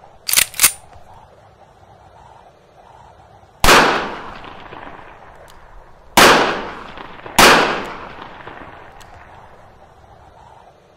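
Gunshots with a long echoing decay: two short sharp cracks in quick succession at the start, then three single loud shots a few seconds apart, the last two about a second apart, each ringing out for over a second.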